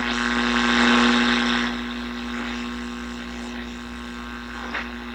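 Yaesu FRG-7 communications receiver's speaker giving out static hiss with a steady hum and faint whistle tones as the dial is tuned up into the AM broadcast band. The hiss swells in the first couple of seconds, then settles lower, and a station starts to break through near the end.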